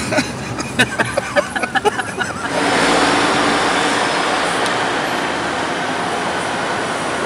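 A quick run of sharp clicks and knocks, then, about two and a half seconds in, a loud steady rush of city vehicle noise.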